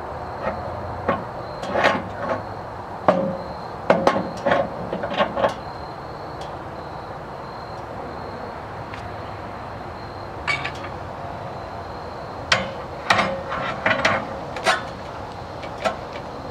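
Metal clanks and knocks as the upright and log clamp on a bandsaw sawmill bed are set and adjusted: two bursts of sharp strikes with a lull of a few seconds between them.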